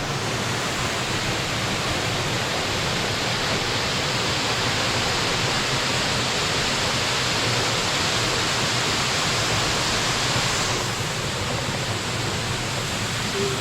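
Waterfall: steady rush of falling water, the hiss thinning slightly about eleven seconds in.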